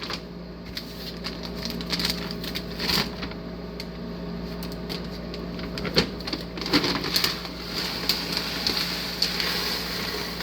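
Packing and handling duck feed and its containers: irregular clicks, knocks and rustling, with a sharper knock about six seconds in, over a steady low hum.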